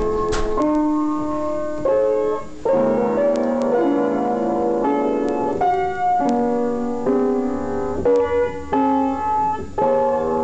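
Piano playing a slow melody over held chords, the notes changing every half second to a second.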